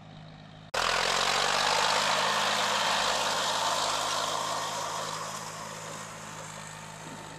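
John Deere 5310 tractor engine running under load as the tractor works through wet paddy mud on iron cage wheels. It starts as a faint distant hum, turns suddenly much louder and close about a second in, then slowly fades.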